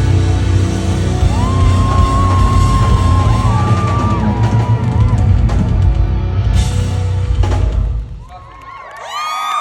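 Loud live pop music with drums and heavy bass, ending about eight seconds in. Near the end, the audience starts cheering and screaming.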